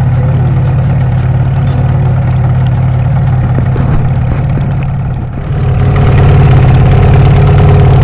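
Boat engine running steadily. About five seconds in it dips briefly, then runs louder and higher, as if the throttle was opened.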